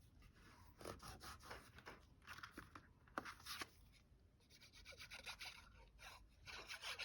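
Faint rustling, sliding and light tapping of paper and card pieces being handled and pressed into place, in short irregular bursts.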